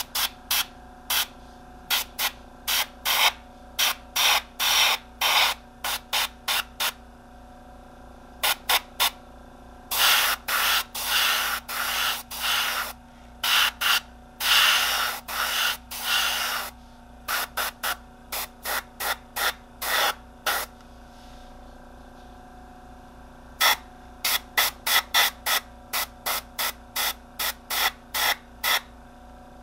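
Airbrush spraying a light dusting coat of paint in many short bursts of hiss, with a few longer bursts in the middle and two brief pauses.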